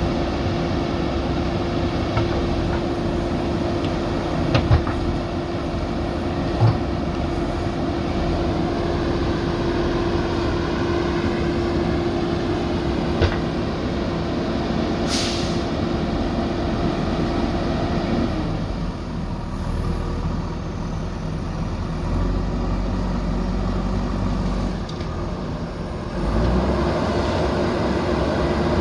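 JCB backhoe loader diesel engine running steadily while working, with a few sharp knocks and one short hiss about halfway through. Its steady engine note drops away about two-thirds of the way in.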